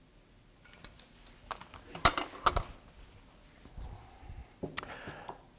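Scattered light clicks and knocks of small objects being handled on a tabletop, loudest about two seconds in, with a few more near the end.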